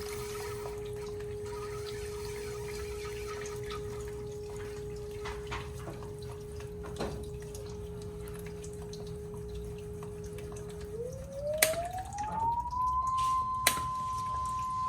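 Sine wave generator tone holding at about 400 Hz, the low frequency that keeps the fish tank pump running, over a low hum and trickling water. About eleven seconds in the tone glides up to about 1000 Hz, the signal that shuts the pump off and opens the drain valve, and a few sharp clicks follow.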